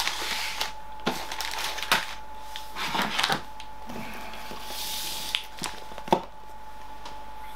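Hands moving food packets about and rustling packaging, with scattered light knocks and clicks as items are set down.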